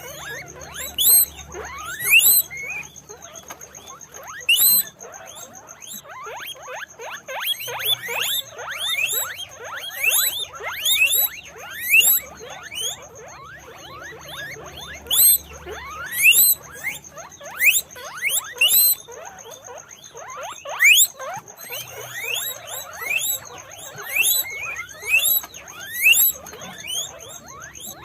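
Several guinea pigs squealing, a constant overlapping chorus of short, rising whistle calls.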